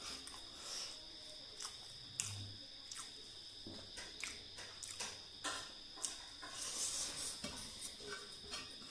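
Eating sounds of chow mein noodles eaten by hand from a metal plate: irregular wet chewing and lip smacks with small clicks and scrapes of fingers on the plate. A steady high whine runs underneath.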